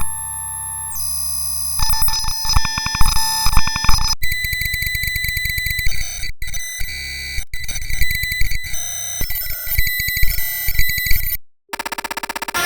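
Electronic synthesized sound effects: buzzing, beeping tones and rapid stuttering pulses that switch to a new pattern every second or two. The sound cuts out briefly near the end.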